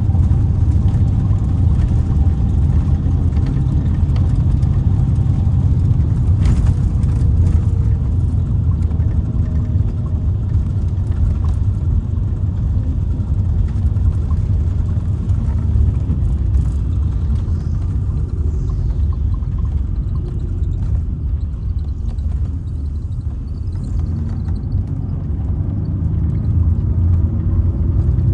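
Mercedes-Benz O-500R coach's diesel engine running under way with a steady low rumble, its pitch drifting slightly. It eases off a little past the middle and builds again near the end.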